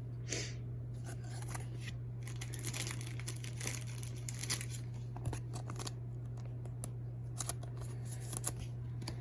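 A foil trading-card pack being torn open and its wrapper crinkled while the cards are handled: a run of soft rustles and small clicks.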